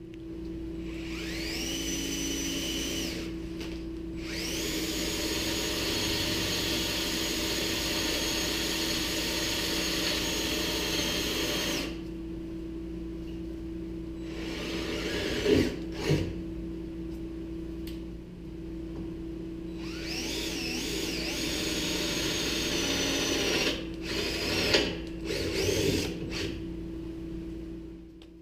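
Cordless drill boring holes through steel angle-iron brackets. The motor spins up and runs in several stop-start runs, the longest about seven seconds.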